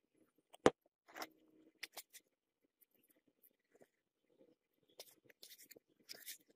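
Moulding sand being pressed and packed by hand into a wooden casting flask: scattered soft, gritty crunches and scrapes, with one sharp knock less than a second in that is the loudest sound.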